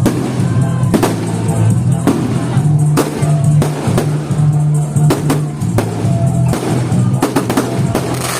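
Loud music with a heavy bass line and a drum beat. Sharp fireworks bangs and crackles sound over it, coming about once a second and then in a quick rattling cluster near the end.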